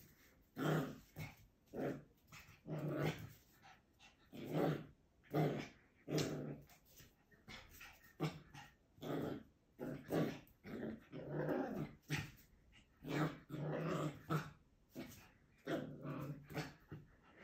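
Schipperke puppy growling and yapping in play, short bursts over and over, one or two a second.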